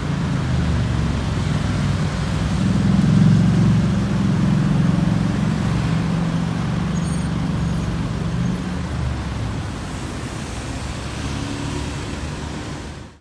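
Heavy city road traffic: cars and a bus running past close by, with a low engine drone that is loudest a few seconds in and eases off near the end.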